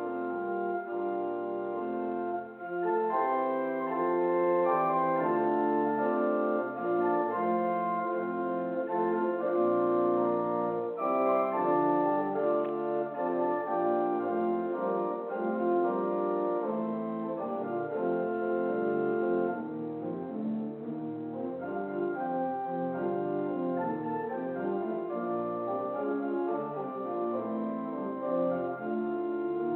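Instrumental church prelude music: sustained chords and a moving melody of held notes with an organ-like or brass-like tone.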